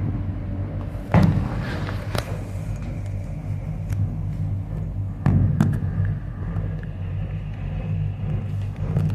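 Steady low rumble and hum inside a moving Maokong Gondola cabin, with a few sharp knocks and clicks: one about a second in, one around two seconds, and two more past the middle.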